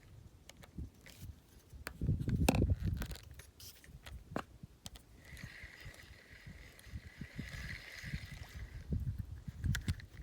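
Knocks, bumps and scrapes of gear being handled in a kayak, loudest about two seconds in, with a faint steady whir for a few seconds in the middle.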